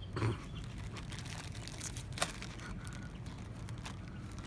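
Crinkling of a plastic chip bag being handled, with a sharp click about two seconds in, over a steady low rumble.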